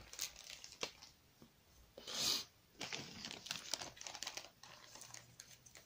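Quiet crinkling of a clear plastic bag and light clicks of small plastic toy parts being handled, with a short rustle about two seconds in and a run of faint ticks after it.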